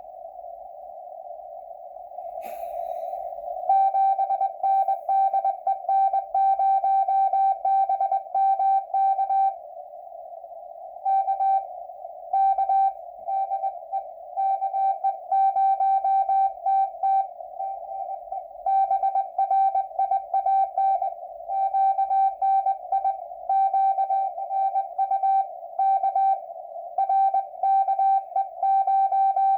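Amateur radio Morse code (CW) signal: a mid-pitched tone keyed in dots and dashes, with short pauses between groups, over steady band hiss from the receiver. There is a brief crackle of static about two and a half seconds in.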